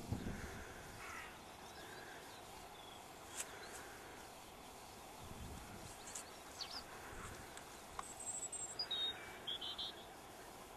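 Outdoor background noise with scattered faint high chirps like small birds calling, a few light clicks, and a short run of high sharp sounds near the end.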